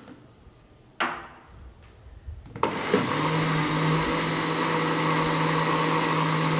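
A sharp knock about a second in, then an electric blender (mixer grinder) starts about two and a half seconds in and runs steadily with a steady motor hum, beating a thin egg-and-flour batter.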